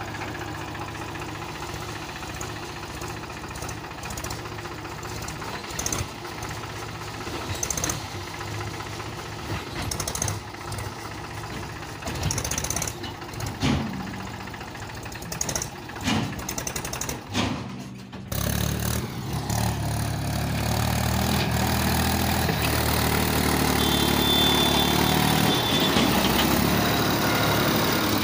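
Mahindra tractor diesel engine running, with scattered knocks over it. About two-thirds of the way through it cuts to a closer, louder, steady idle of a Mahindra 275 DI TU's three-cylinder diesel.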